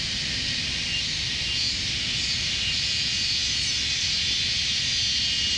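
Pork belly sizzling steadily on a cast-iron griddle over a camp stove, a continuous hiss with a low rumble underneath.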